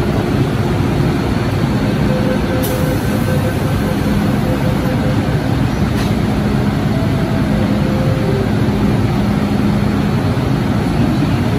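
An MTR M-Train stands at the platform, its equipment humming steadily over station noise. Two sharp clicks come about three and six seconds in as the train doors and platform screen doors shut.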